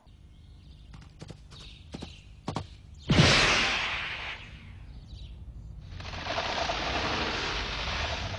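Cartoon sound effects: a few sharp knocks, then a loud kick with a whoosh about three seconds in that fades over a second as the football flies through the air, followed by a steady rushing noise from about six seconds in.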